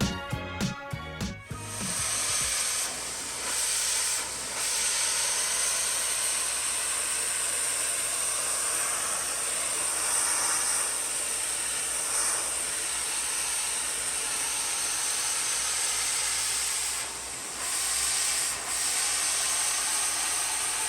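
Steam cleaner lance spraying hot steam onto brickwork, a steady hiss with a few short dips, cleaning carbon staining off the bricks. Music ends about a second in.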